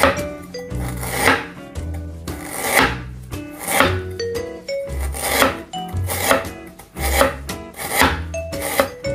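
Cleaver slicing through fresh ginger root onto a cutting board in a series of repeated cuts, over background music.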